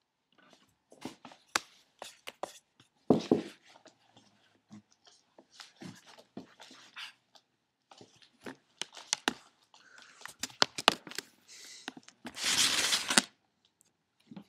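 Scattered clicks, taps and rustles from cats and a person moving about close to the microphone on a hardwood floor, with a louder burst of noise lasting under a second near the end.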